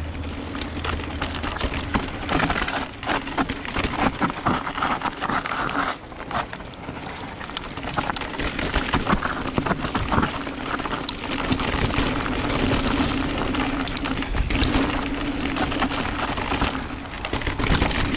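Electric mountain bike ridden down a dirt singletrack: tyres rolling over dirt and bumps, with the bike rattling and frequent short knocks, under a steady hum.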